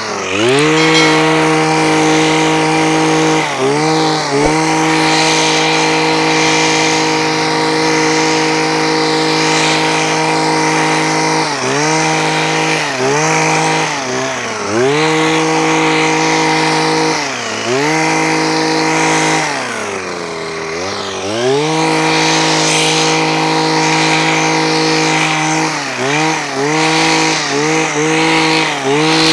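Kawasaki TJ23V hedge trimmer's small two-stroke engine running at full throttle while it cuts into dense vines. It drops toward idle and revs back up again and again as the throttle is released and squeezed. There is a longer dip to idle about twenty seconds in, and quick throttle blips in the last few seconds.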